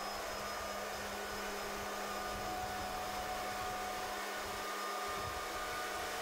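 Heavy construction machinery running with a steady drone: an even hiss with a faint low hum and a few thin whining tones above it.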